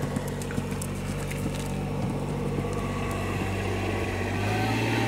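A motor vehicle's engine running steadily, getting louder and slightly higher near the end, with faint hoofbeats of a cantering horse in the first couple of seconds.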